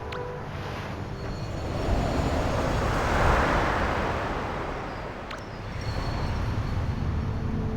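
A rush of noise that swells to a peak about three seconds in and fades away again, over a steady low rumble.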